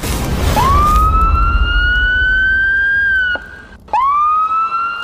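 Intro sound effects: a low rumbling whoosh, then a long clear squealing wail that rises sharply and then climbs slowly before dropping away, followed straight away by a second one just like it.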